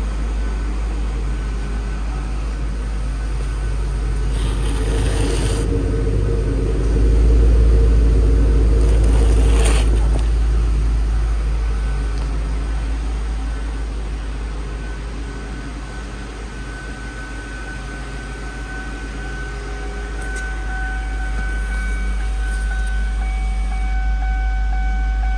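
2002 Ford Thunderbird's 3.9-litre V8 idling steadily. It grows louder for a few seconds about a third of the way in, then eases off.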